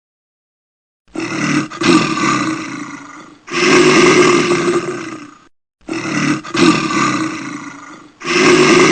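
An animal calling loudly: after about a second of silence, four long calls of about two seconds each, in two pairs.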